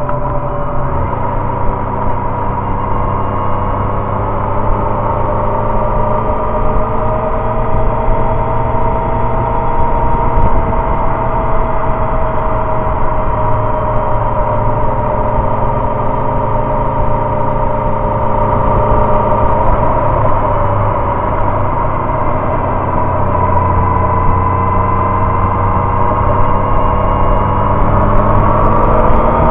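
Inline-four 600 cc sport motorcycle engine running at a steady cruise, with wind and road noise. Its pitch drifts gently and rises near the end as the bike speeds up.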